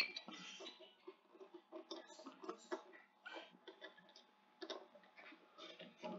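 Quiet room with faint, scattered soft taps and ticks.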